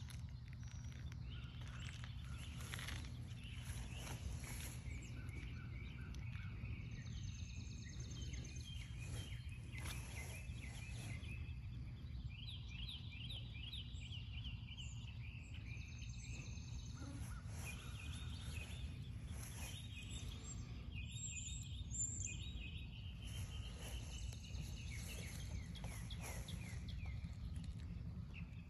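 Outdoor ambience: birds chirping and trilling over a steady low rumble, with a high, pulsing insect buzz.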